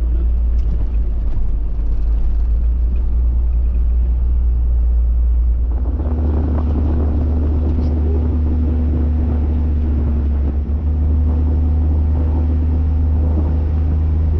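Diesel engine of a Bucher Duro expedition truck running as it drives, heard inside the cab as a steady low drone. About six seconds in, the engine note changes and grows fuller, and near eleven seconds there is a brief dip in level.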